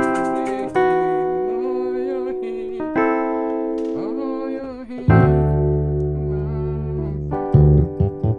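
Electric piano keyboard playing sustained chords over a low bass line in the left hand. A new chord is struck about every two seconds, and the bass comes in stronger about halfway through.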